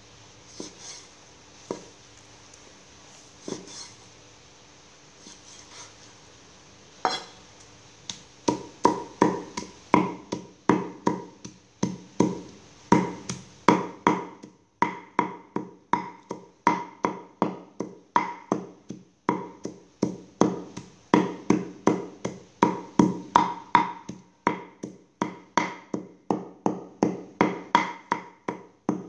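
Cleaver chopping pork belly on a round wooden chopping block: a few scattered knocks at first, then from about eight seconds in a steady run of heavy chops, two or three a second, each a sharp knock on the board.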